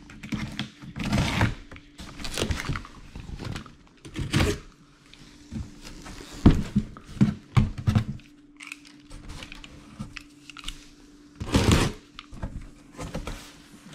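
Cardboard shipping box being opened by hand: flaps pushed and folded back with irregular scrapes, tearing and thumps. Near the end comes a louder rasping stroke as a utility knife is drawn through the cardboard.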